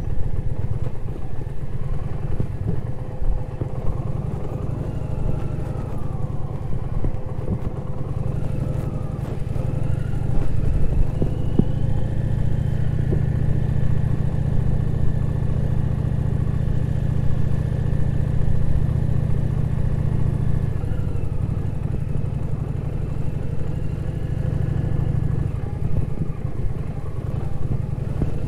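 Indian Challenger's V-twin engine running steadily under way on a dirt track, a little louder from about ten seconds in and easing back around twenty seconds.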